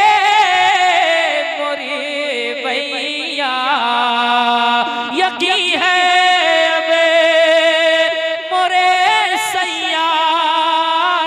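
A man's solo voice singing a naat, unaccompanied, through a microphone. He draws out one long melismatic phrase of held, wavering notes that slide up and down between pitches.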